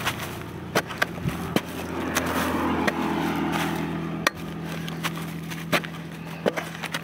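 A hand spade digging into dry, crumbly earth to open a rice-field crab burrow, giving several sharp scraping strikes of the blade with soil falling away. A steady low hum runs underneath.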